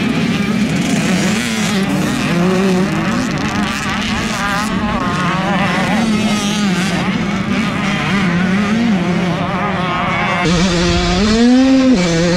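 Several motocross bikes racing, their engines revving up and down over one another. About ten seconds in, the sound switches to a single bike's engine heard close up from onboard, which revs up sharply twice near the end.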